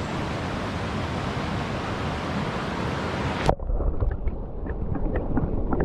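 Rushing river water, steady and loud. About three and a half seconds in it cuts off with a click, leaving a muffled low rumble with faint scattered ticks.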